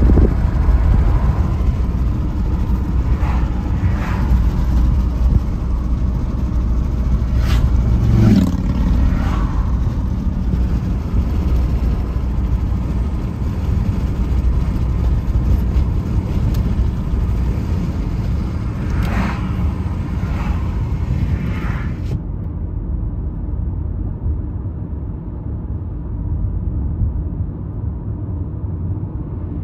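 Steady low rumble of a car driving along a road, heard from inside the moving car: tyre and wind noise. A few brief whooshes come around eight seconds in and again near twenty seconds. At about twenty-two seconds the airy hiss drops away suddenly, leaving mostly the low rumble.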